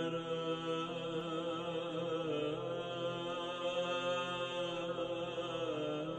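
Chanting voices as background music, holding long notes that shift slowly in pitch, with a steady level.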